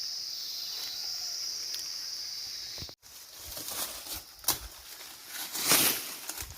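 Crickets chirping steadily, which stop abruptly about three seconds in; then dry maize plants rustling and crackling as they are handled, in irregular strokes with the loudest near the end.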